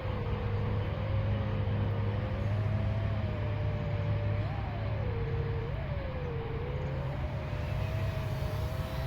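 FPV quadcopter's brushless motors and propellers whining in flight, the pitch rising and falling with the throttle over a steady low rumble.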